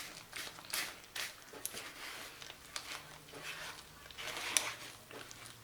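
A spoon or other kitchen utensil makes irregular scrapes and knocks against a container as thick, half-frozen coconut milk is scooped out.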